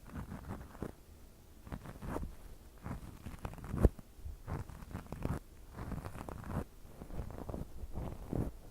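Ear-cleaning ASMR sounds: an ear pick scraping and rubbing close against the microphone in short, irregular scratchy strokes, with one sharper knock about four seconds in.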